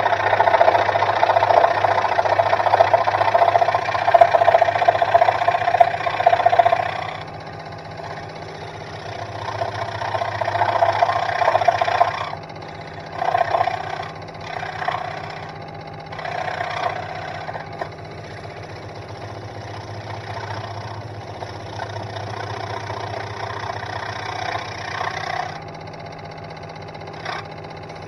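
Sealey SM1302 scroll saw running, its reciprocating blade sawing through a wooden board, over a steady motor hum. The sawing is loud for about the first seven seconds, then comes and goes in shorter swells with quieter stretches as the board is steered along the line. There is one sharp click near the end.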